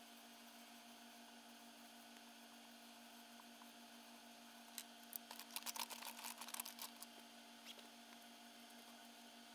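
A faint steady electrical hum, with a quick flurry of scratchy drawing strokes on paper about five to seven seconds in.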